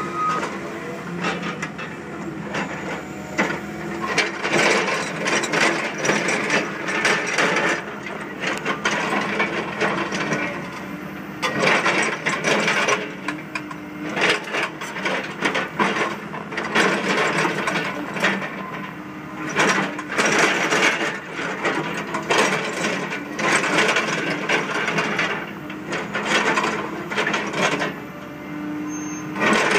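Cat 315D excavator ripping through hard rock: its diesel engine runs under load while the ripper tooth grinds and scrapes against the rock in repeated rough strokes, with broken rock grating and knocking.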